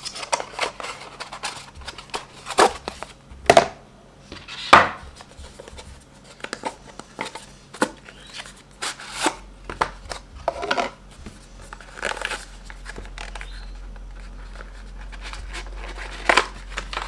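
Cardboard product boxes and paper packaging being handled: scattered knocks and taps as boxes are set down and opened, with paper rustling in between.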